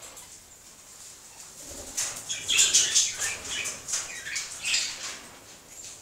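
A bird's wings flapping in a fluttering flurry that starts about two seconds in and lasts about three seconds.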